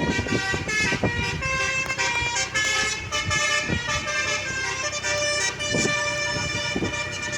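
Basuri (telolet) bus horn playing a tune: a run of pitched horn notes that step from one note to the next without a break, over a low rumble.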